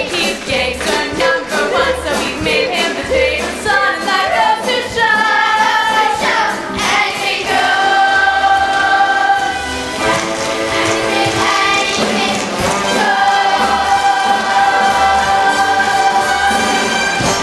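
An ensemble of young voices sings a musical-theatre number with instrumental accompaniment and a steady low beat. The voices move quickly at first, then hold long sustained chords twice in the second half.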